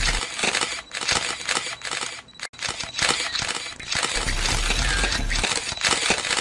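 Instrumental background music with a beat and a held low bass note, its phrase looping about every five seconds.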